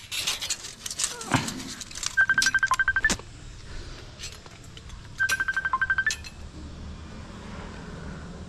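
A mobile phone ringing: two bursts of rapid, high electronic beeps at one pitch, about ten a second, each burst lasting about a second, the second coming about three seconds after the first. A few sharp clicks near the start.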